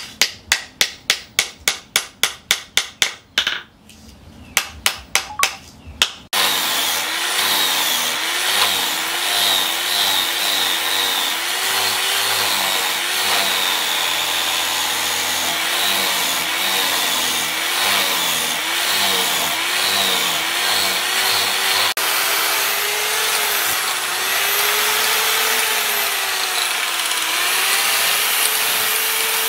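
A hand hammer strikes rapidly, about four blows a second, with a short pause, as a wooden handle is fitted to a machete blade. Then an electric angle grinder with a sanding disc runs steadily, grinding the wooden handle scales, its pitch dipping and rising as it is pressed into the wood.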